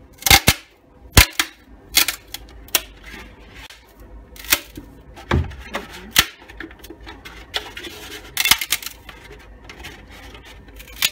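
Thin hard helmet outer shell being handled and squeezed by hand: a dozen or so sharp, irregular clicks and knocks, with a low thump about five seconds in and a close cluster of knocks a little before the end.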